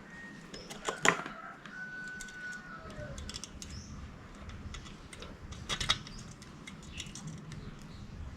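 Scattered clicks and clinks of small hard parts being handled, with two sharper knocks about a second in and near six seconds, and a few faint high whistling tones.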